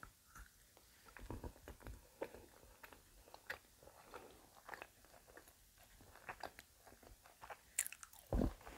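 Close-up mouth sounds of a person biting and chewing small chocolate eggs: soft, irregular clicks and little crunches. A louder thump comes near the end.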